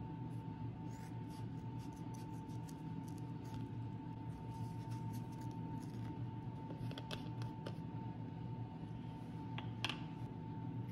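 Scissors snipping through a foam dauber in a series of short, irregular cuts, with a louder click near the end, over a steady low background hum.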